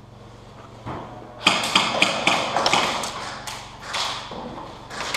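A dull thump, then a rapid, irregular run of sharp cracks and taps with a short echo: airsoft guns firing and BBs striking hard surfaces.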